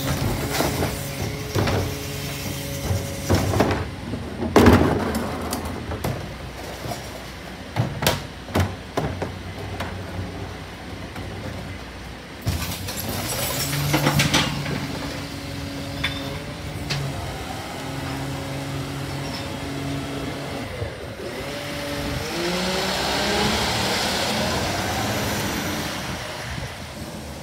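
Bucher rear-loader garbage truck at work: sharp knocks and bangs as the rear bin lifter tips and empties a wheelie bin, over the truck's steady running hum. Near the end the truck pulls away, its engine pitch rising.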